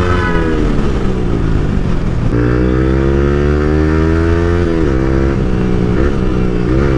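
Yamaha sport motorcycle's engine through a Leo Vince Cobra aftermarket exhaust, ridden on the road: the engine note falls for about two seconds as it slows, then rises steadily under acceleration. About five seconds in there is a short dip and recovery, like an upshift, and small wobbles follow near the end.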